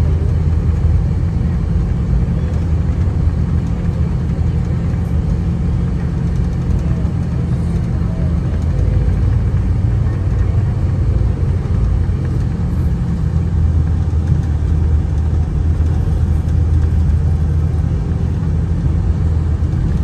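Steady low rumble of a moving vehicle's engine and tyres, heard from inside the cabin.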